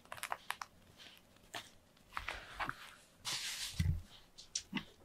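Cats moving about and sniffing right at the microphone: scattered soft clicks, a short breathy rush a little after three seconds in, and a dull thump just after it.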